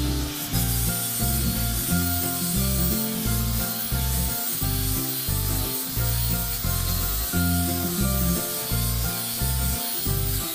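Background music: a rhythmic, stepping bass line with synth notes over a steady high hiss.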